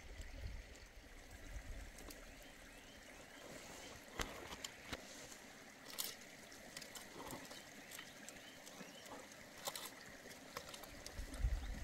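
Faint trickle of running water, with a few sharp clicks scattered through.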